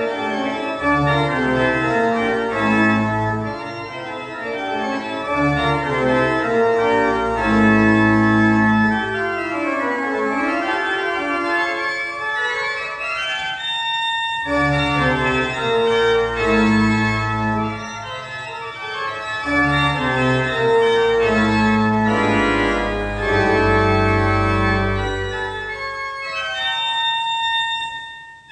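Church organ music: full sustained chords over deep pedal notes, with quick runs sweeping down and back up about a third of the way in.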